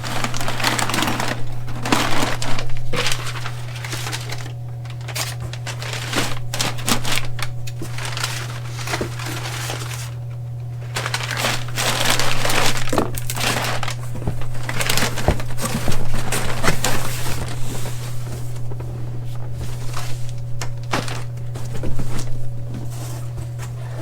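Packing material crinkling and rustling in irregular bursts as parts are dug out of a shipping box, over a steady low hum.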